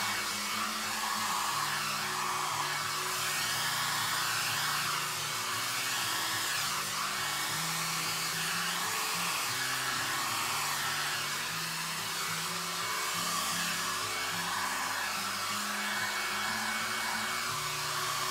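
Small handheld hair dryer blowing steadily over wet acrylic paint. Its hiss sweeps up and down in pitch every second or two as it is moved back and forth, pushing the poured paint out into blooms.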